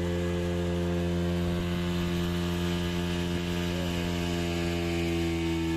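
Passenger motorboat's engine running at a steady cruising speed, a constant droning hum.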